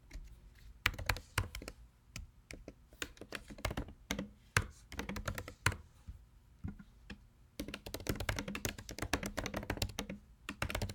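Typing on a computer keyboard: scattered keystrokes with short pauses, then a fast, continuous run of typing for about three seconds near the end.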